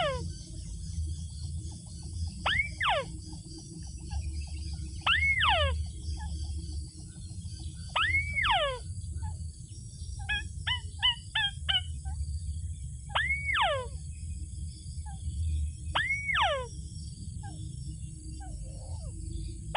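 Repeated calls of a white-breasted waterhen. Each call is an arching note followed by a quick downward sweep, coming about every two and a half to three seconds, with a short burst of rapid chattering notes midway. The even spacing fits a lure call used to draw the birds into a snare, heard over a steady low hum.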